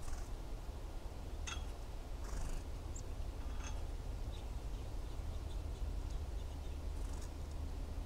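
A few short, high bird chirps, at about one and a half seconds and again near four seconds, over a steady low outdoor rumble.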